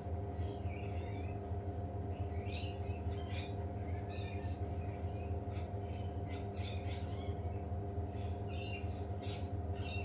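Faint, short bird chirps and calls, scattered every second or so, over a steady low hum with a few constant tones.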